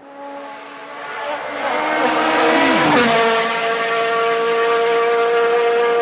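A high-performance sports car's engine and exhaust driving past fast: the engine note swells in over about two seconds, drops in pitch as the car passes about three seconds in, with a single sharp crack at that moment, then holds a steady, loud note.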